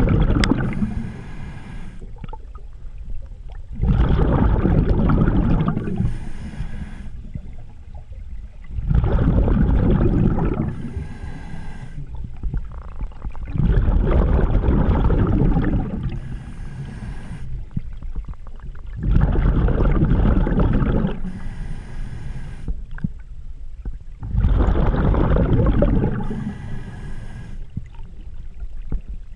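Scuba diver breathing through a regulator, heard underwater from a head-mounted camera. Each breath gives a short high hiss on the inhale, then a loud two-second rush of exhaled bubbles, in a steady cycle about every five seconds.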